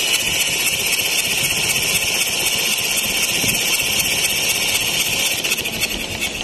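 Kubota V1502 four-cylinder diesel engine running at idle with a fast, even clatter. It grows quieter near the end.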